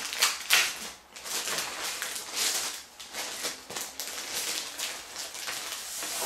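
A thin clear plastic bag crinkling and rustling in irregular crackles as hands pull the instruction booklets, sticker sheet and cardboard backing out of it.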